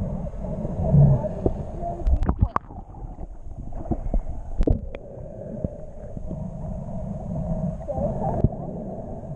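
Muffled low rumble and gurgling of water around an action camera in its waterproof housing as it moves underwater and dips through the surface, with several sharp clicks in the first half.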